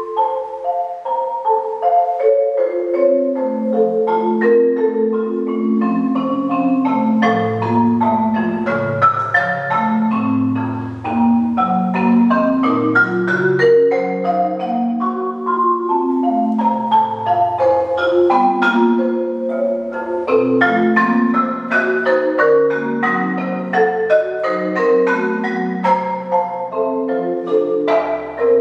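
Solo marimba (a Marimba One) played with four mallets: a quick stream of notes steps down from the middle into the deep bass over the first ten seconds or so, then busy, fast-moving figures range up and down the instrument.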